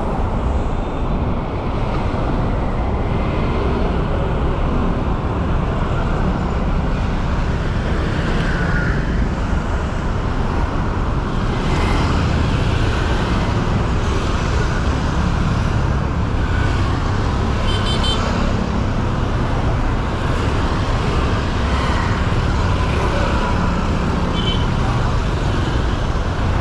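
Steady road traffic noise of a busy city street, with a couple of short high beeps about two-thirds of the way through and again near the end.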